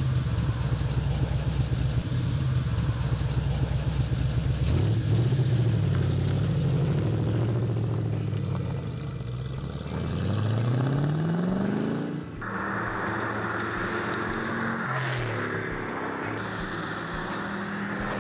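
De Tomaso Pantera's Ford V8 running loud, revving up in several rising sweeps about ten seconds in, then the car passing by with its note falling as it goes past.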